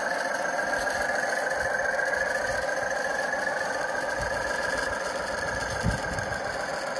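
Sound card in a model locomotive playing a recorded British Rail Class 37 'growler' diesel engine running, heard from the loco's small onboard speaker. The engine note dips slightly in pitch about midway. There is a brief low thump about six seconds in.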